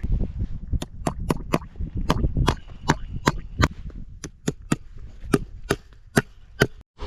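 Hammer blows driving fence staples into a wooden post: a run of sharp, separate strikes, about two to three a second, over a low steady rumble.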